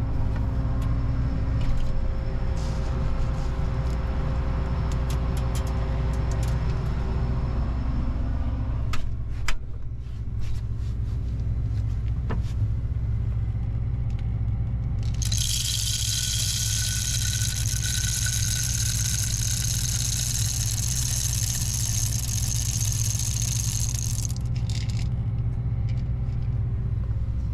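A vehicle engine idles with a steady low rumble while a soybean sample is checked in a grain moisture tester, with a few sharp clicks and knocks of handling. For about nine seconds in the middle, a high hissing rattle runs, then cuts off.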